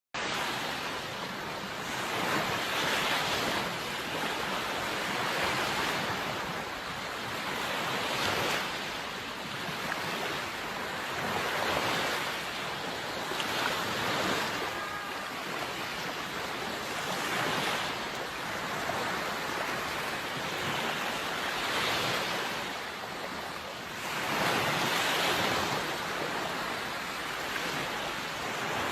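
Sea waves washing in, a steady hiss that swells and falls back about every three to four seconds.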